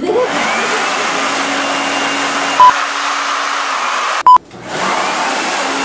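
Electric blower running steadily with a rising motor whine as it spins up, blowing a toilet-paper roll off its nozzle into a long streamer. Two short, loud beeps cut in, the second at a brief break, after which the blower spins up again.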